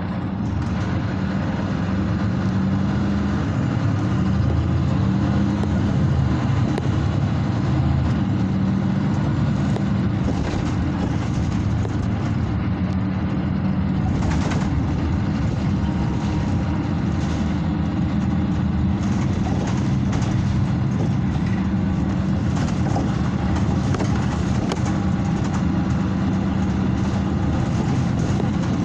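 Mercedes-Benz Citaro C2 city bus's diesel engine and drivetrain running steadily under way, heard from inside the passenger cabin, with road noise.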